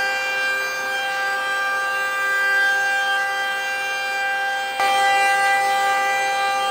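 DeWalt XR cordless compact trim router with a templating bit running at full speed, a steady high whine while it routes a mortise pocket along a scrap-wood template. The whine steps up in loudness about five seconds in.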